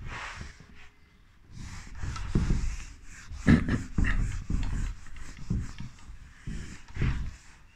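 A man's breathing and small mouth noises close to the microphone, with irregular dull low thumps.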